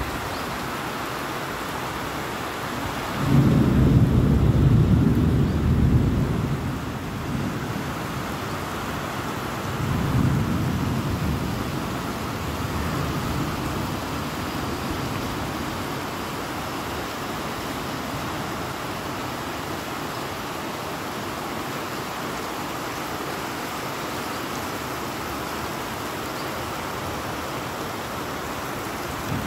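Steady rain falling, with a long low rumble of thunder about three seconds in that lasts some four seconds, and a second, weaker rumble around ten seconds in.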